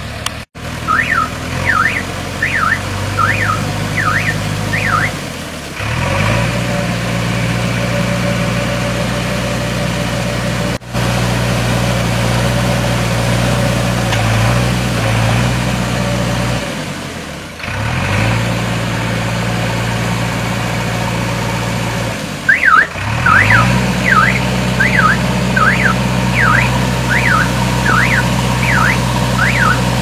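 JCB 3DX backhoe loader's diesel engine running, its pitch rising and settling three times. A warbling electronic alarm sweeps up and down in pitch about twice a second for the first few seconds, and again through the last seven seconds.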